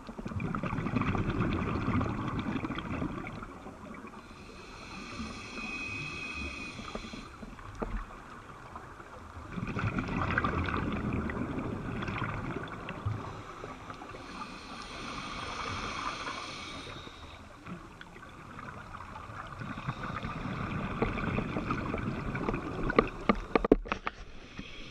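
Scuba diver breathing through a regulator underwater: a gurgling rush of exhaled bubbles lasting about three seconds, then a quieter hissing inhale, in a cycle that repeats about every ten seconds. A few sharp clicks near the end.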